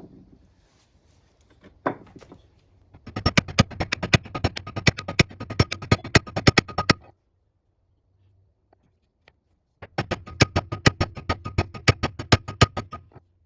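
A new bearing being tapped onto the lathe's spindle shaft: quick, even metal-on-metal taps with a ringing tone, about six a second, in two runs with a pause of about three seconds between.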